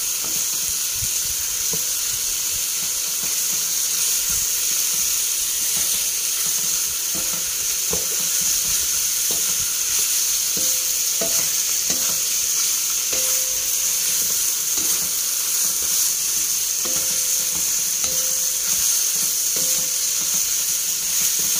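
Pork ribs and sliced onions sizzling in oil in a wok, with a steady high hiss. A wooden spatula stirs them, knocking and scraping against the pan at irregular moments.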